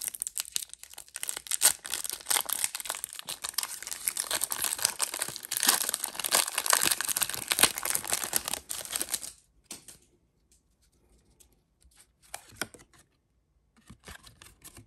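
Foil wrapper of a Pokémon Lost Origin booster pack being torn open and crinkled by hand for about nine seconds, then only a few faint clicks and rustles as it stops.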